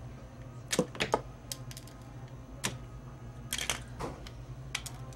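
Scattered light metal clicks and taps, about eight in irregular succession, as a crimping tool closes a stainless steel clamp over tubing on a bag-in-the-box pump fitting.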